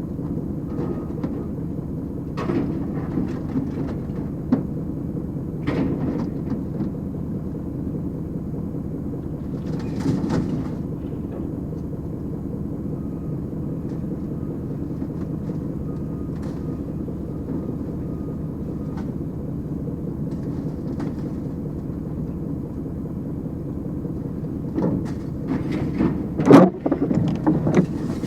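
A heavy engine running steadily, with scattered metal clanks and a burst of loud bangs near the end, the loudest a single crash.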